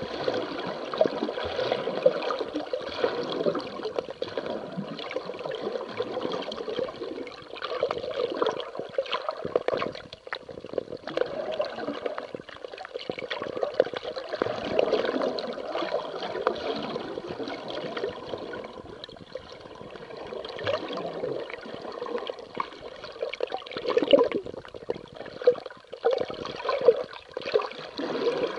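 Water sloshing and gurgling around a camera moving underwater, an uneven wash of water noise with small clicks that keeps swelling and fading.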